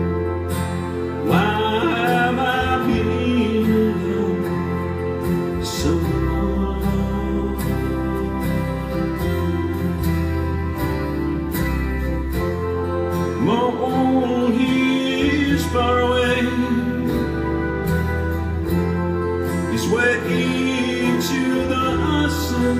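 Live band music: acoustic guitars and keyboard playing a slow, gentle song, with a sung vocal line coming in three phrases, about a second in, around fourteen seconds in, and near the end.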